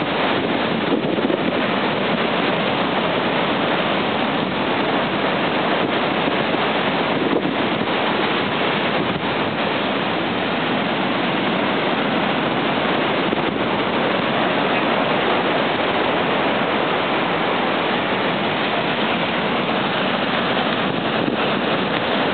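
Heavy Mediterranean surf breaking over a rocky shore and churning into foam, a loud, unbroken wash of noise.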